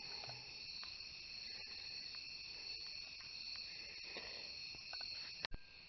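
Quiet, steady high-pitched drone like insects, over faint background hiss, with a few faint ticks and one sharp click near the end.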